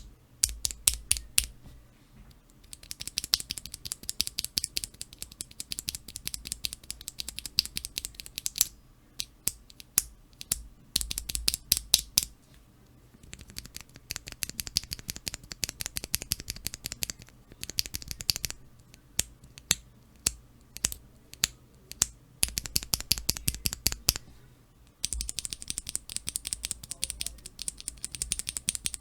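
Cherry MX Black linear keyboard switches on keychain switch testers being pressed rapidly: fast runs of clacking keystrokes, many a second, broken by short pauses.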